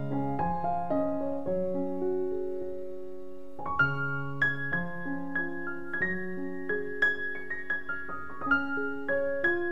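Background piano music: single notes over held chords, with the notes coming more often from about four seconds in.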